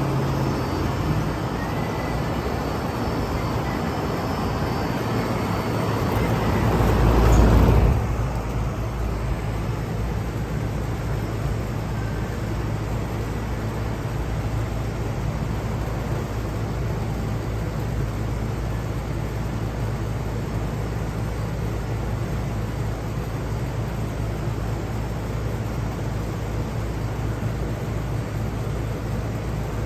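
Lennox air-conditioner condensing units running, a steady fan rush over a low compressor hum. About eight seconds in, a louder rushing swell cuts off abruptly as one unit shuts off, and the remaining unit keeps humming.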